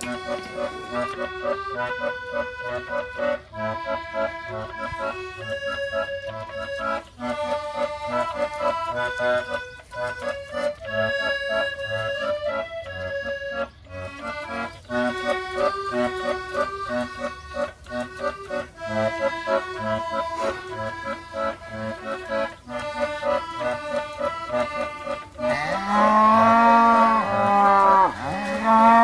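Instrumental accordion music with a steady bass beat. Near the end a cow moos several times in a row, about a second apart, over the music.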